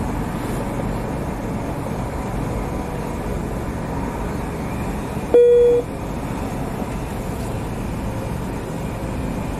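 Steady low rumble of an idling car, with a single short electronic beep from the car wash pay station about five seconds in.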